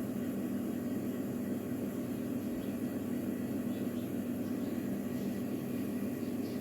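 Steady low background hum with no distinct events: room tone.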